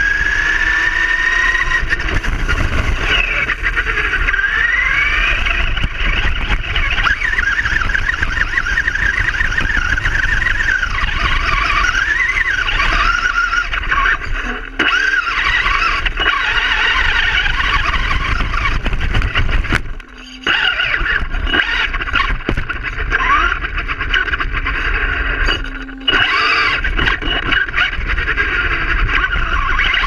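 Traxxas Rustler RC truck driving fast with its motor and drivetrain whining, the pitch rising and falling with the throttle, over the rumble of its tyres on pavement and grass. The sound drops out briefly a few times when it lets off.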